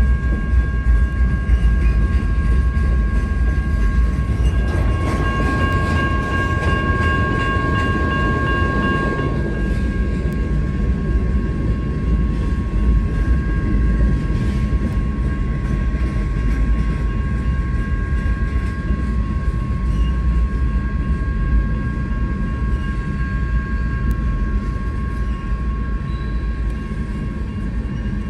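Freight train cars rolling through a grade crossing: a steady low rumble of wheels on rail. A steady high ringing tone runs over it and grows louder for a few seconds about five seconds in.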